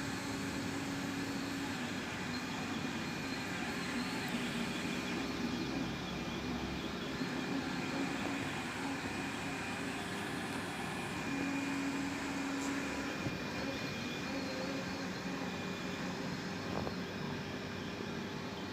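MINGDA 3D printer running mid-print: a steady whir of cooling fans, with low stepper-motor tones that come and go as the print head moves.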